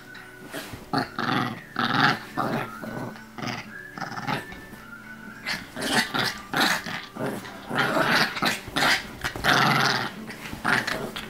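Small chihuahua growling and barking in play, in short rough bursts that come thick and fast from about halfway through.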